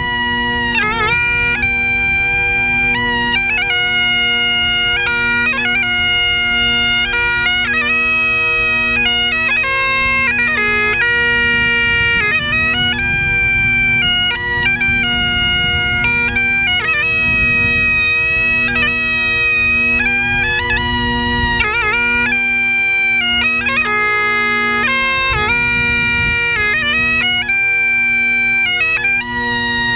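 Great Highland bagpipes playing a tune: the steady drones sound under a chanter melody that moves quickly through its notes with grace-note flourishes. Some wind buffets the microphone underneath.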